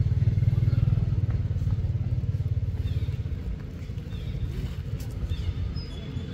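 A motor engine running, loudest in the first couple of seconds and then easing off.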